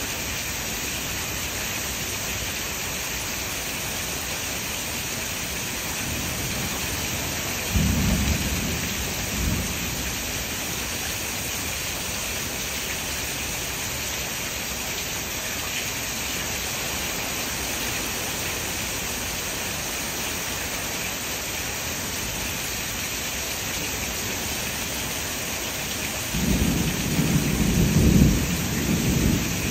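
Steady rain hissing, with a short rumble of thunder about eight seconds in and a longer, louder rumble of thunder near the end.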